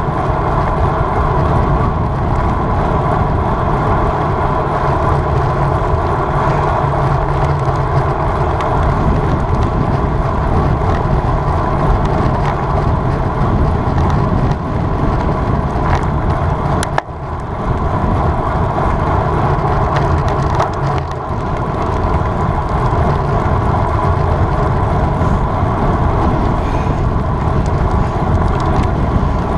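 Steady wind rush and road noise on a bicycle-mounted camera while riding at race speed, dipping briefly about halfway through.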